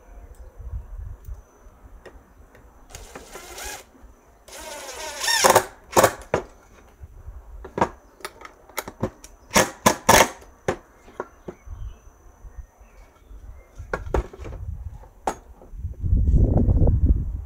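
Cordless drill whirring in two short runs as it drives into a piece of wood. This is followed by a series of sharp clicks and knocks, and a low rumble near the end.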